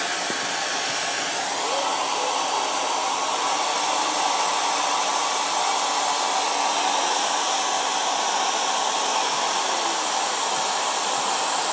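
Hand-held hair dryer running steadily, an even rush of blown air with a steady whine under it.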